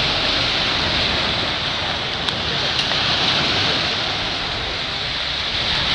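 Steady rushing of wind buffeting the microphone and choppy waves washing on the shore.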